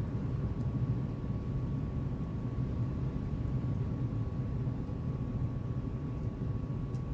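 Steady low rumbling hum with a faint high steady tone above it, unbroken throughout.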